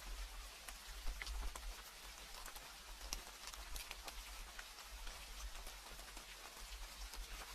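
Rain falling steadily, with many individual drops ticking sharply against a surface over a soft hiss, and a steady low rumble beneath.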